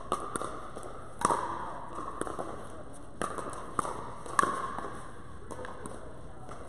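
Pickleball paddles striking a hard plastic ball during a rally: about ten sharp pops at an uneven pace, each with a short echo from the large hall. The loudest hits come about a second in and just past four seconds.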